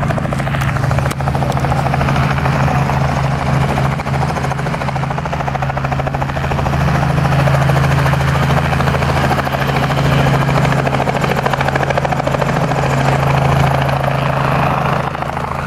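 Small helicopter running, a steady rotor beat and engine drone that grows a little louder in the middle.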